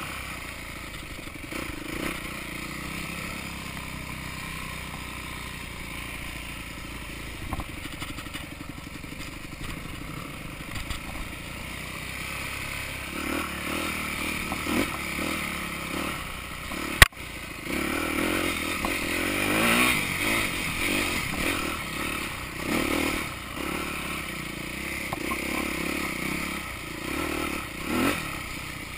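Yamaha YZ250F dirt bike's 250 cc single-cylinder four-stroke engine running on a trail ride, rising and falling with the throttle, steadier in the first part and revving more often later. A single sharp knock partway through.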